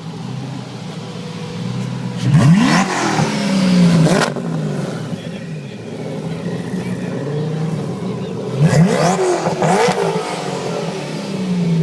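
Koenigsegg V8 supercar engine idling and revved hard twice, the pitch sweeping sharply up and dropping back to idle each time, the first rev about two seconds in and the second near the middle-late part.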